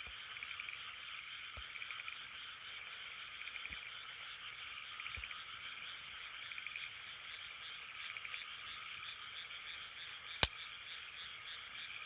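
A chorus of frogs calls steadily, trilling in repeated short bursts. A single sharp pop from the campfire comes about ten and a half seconds in, with a few fainter crackles earlier.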